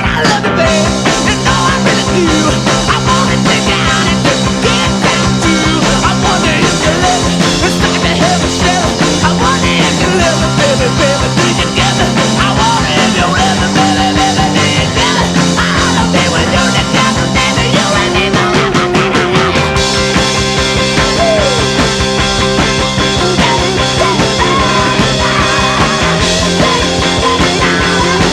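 Rock music with electric guitar and a steady beat, playing loud; an instrumental stretch of the song.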